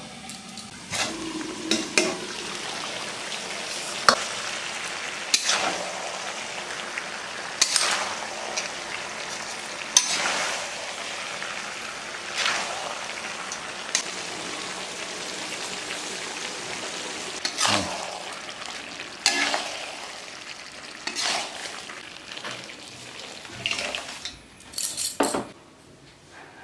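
Prawn and Malabar spinach chorchori sizzling in a pan, with sharp metal clinks and knocks against the pan every couple of seconds. The sizzle fades near the end.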